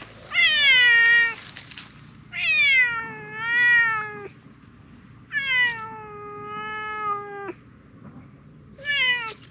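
Silver tabby cat meowing loudly four times: a short falling meow, two long drawn-out meows, and a short falling meow near the end. The calls are insistent, as if demanding something.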